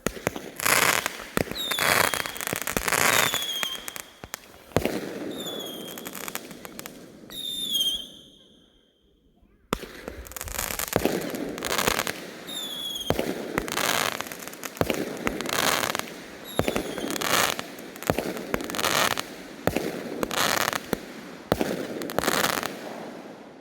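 Consumer firework cakes firing a rapid run of bangs and crackling bursts, several with short falling whistles. The shots stop for about two seconds partway through, then start again.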